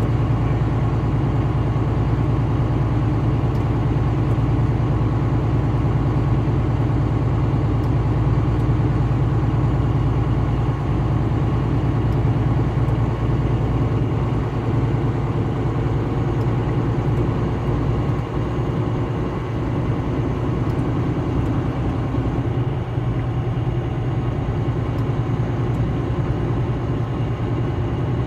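Steady vehicle engine and road noise at highway speed, a continuous low drone; the deepest rumble thins out about halfway through.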